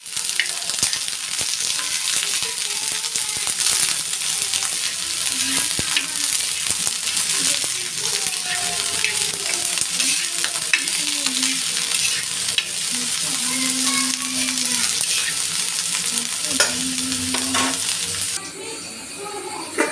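Cut green bean pods sizzling on a flat black griddle (tava) while a spatula stirs and scrapes them, with scattered clicks of the spatula on the pan. The sizzle drops away sharply near the end.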